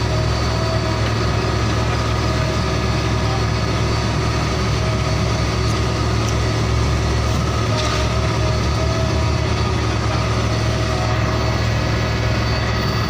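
Heavy truck engine idling steadily, a continuous low drone.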